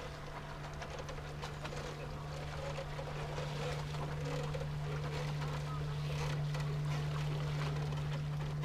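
Steady low hum of a boat's motor on the river, slowly growing louder, with faint voices over it.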